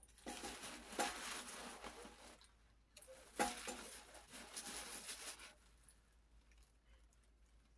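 Handling noise as a small feeding bottle is brought to a silicone doll's mouth: two stretches of rustling, each starting with a sharp click, the second ending about halfway through, then quiet.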